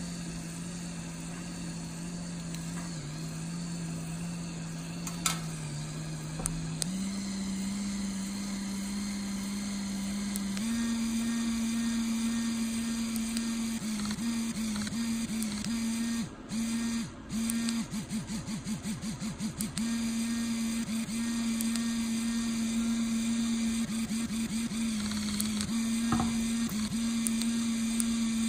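Small motor of a vibrating silicone cock ring with a licking tongue buzzing, its hum shifting pitch in steps as the button cycles through speed settings. About halfway through it changes to pulsing modes, about five pulses a second, then settles back into a steady buzz.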